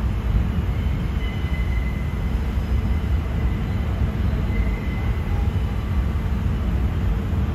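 New York City subway train running on the track, a loud steady rumble of wheels and motors, with a faint high whine coming and going.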